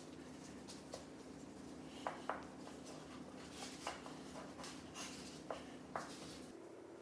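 Small clicks and taps scattered through a steady low hum, the two sharpest close together about two seconds in; the hum changes pitch near the end.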